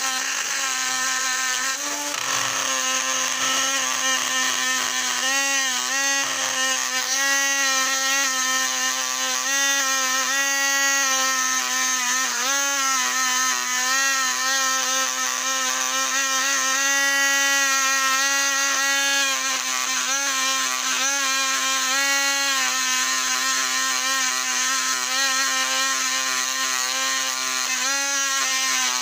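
Small handheld rotary tool with a wire wheel running with a steady high whine, its pitch dipping briefly several times as the wire brush is pressed against the metal wheels of a Lionel 1065 toy locomotive to scour them clean.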